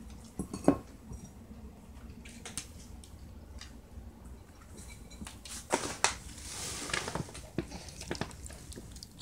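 Pembroke Welsh Corgi puppy eating dry kibble from a bowl: crunching and scattered clicks of kibble and muzzle against the bowl. The loudest knock comes just under a second in, with another cluster about six seconds in.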